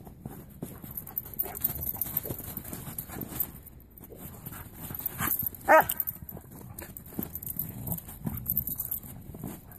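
A Siberian husky and another dog play-fighting in snow: scuffling and paws crunching, with a single short yip about five and a half seconds in, the loudest sound.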